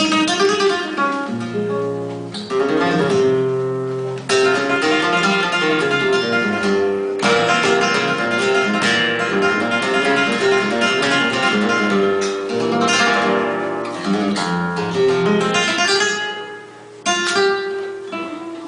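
Flamenco guitar playing: runs of plucked notes broken by sharp strummed chords. The playing thins out briefly a little before the end, then comes back with a hard strum.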